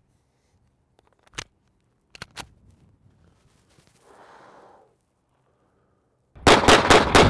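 A few sharp clicks from the Arsenal Firearms Strike One 9mm pistol being handled, then near the end a rapid string of about six shots fired in roughly a second.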